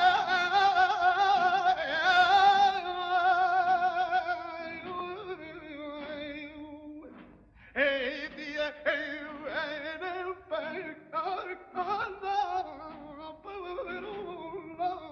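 Singing with a wide, wavering vibrato. A long held phrase fades away about seven seconds in, and after a short pause a run of shorter sung phrases follows.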